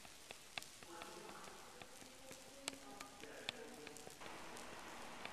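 Paper confetti drifting down after a confetti cannon shot and landing on the hall floor: a faint, rain-like patter with scattered light ticks.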